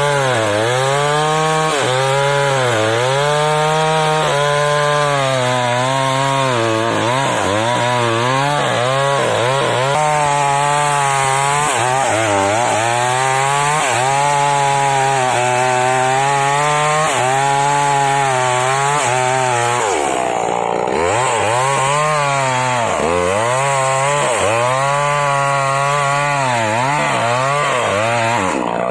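Chainsaw cutting waru wood. The engine note keeps dipping as the chain bogs in the cut and then picks back up, and about two-thirds of the way through it drops briefly toward idle before revving up again.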